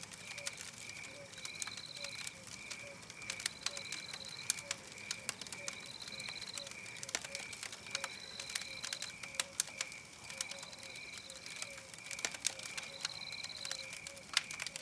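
Wood fire crackling with sharp, irregular pops, over a steady rhythmic chirping and a short high trill that repeats about every second and a half.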